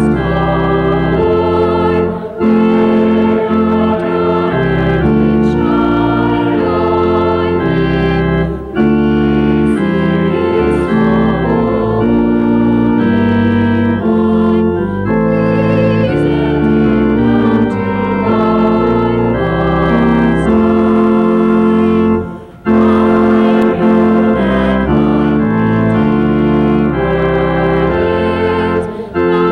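Church organ playing in held chords that change every second or two, with a few brief pauses between phrases.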